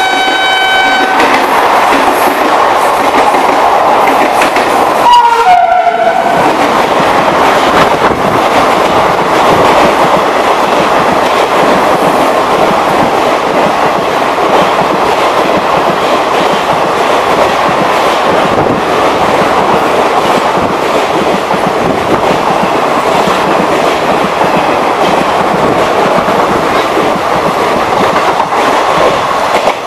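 A WAP-5 electric locomotive's horn sounds a multi-note chord at the start. About five seconds in comes a short second horn sound that drops in pitch as the engine passes. Then an express passenger train's coaches rush past at high speed, with loud, steady wheel clatter and rail noise.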